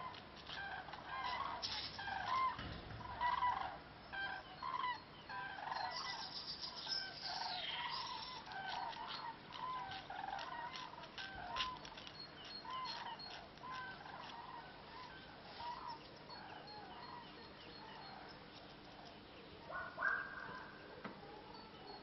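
A large flock of migrating common cranes calling overhead: many overlapping trumpeting calls, densest in the first half and thinning out later.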